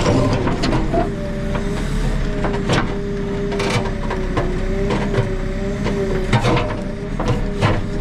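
JCB 3CX backhoe loader's diesel engine running with a steady drone. Over it sits a held two-note whine that wavers slightly, and short knocks come at irregular moments.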